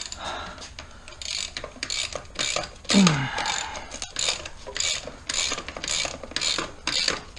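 Hand ratchet wrench worked back and forth in quick, even strokes, about two to three clicking strokes a second. There is a brief falling vocal sound about three seconds in.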